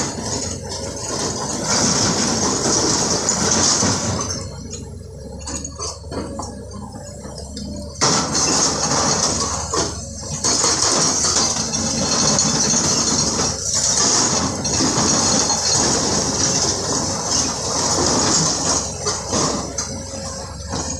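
Excavators working broken stone: diesel engines running under a continuous metallic clanking and hammering on rock. The clatter drops away about four and a half seconds in and comes back abruptly at eight seconds.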